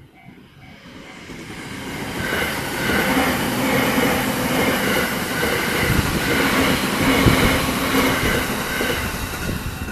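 Train passing through a railway level crossing at speed: its rumble and rattle build over the first couple of seconds, stay loud and steady, and cut off sharply near the end. The crossing's warning bell keeps dinging about twice a second throughout.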